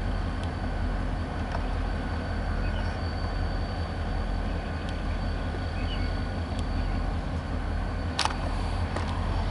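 Engine idling with a steady low rumble and a faint steady whine above it; a single sharp click about eight seconds in.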